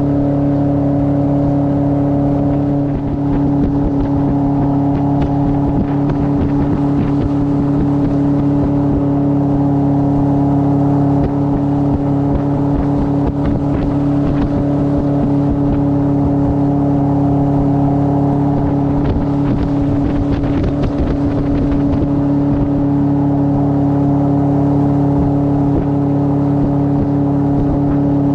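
Outboard jet motor running at a steady cruising speed, its engine tone holding one even pitch throughout.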